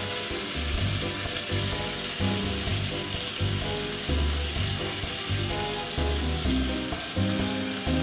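Floured fish fillets sizzling steadily as they fry in olive oil and butter in a stainless steel skillet.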